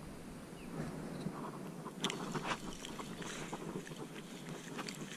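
Quiet lakeside ambience: a low rustling hiss with scattered light clicks, including a couple of sharper ones about two seconds in.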